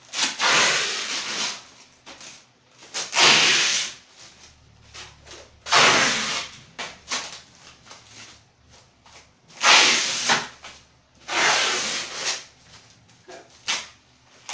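Plastic wrap and packing tape being ripped and peeled off a wrapped parcel, in a series of about six noisy tearing rips, each around a second long, with short pauses between.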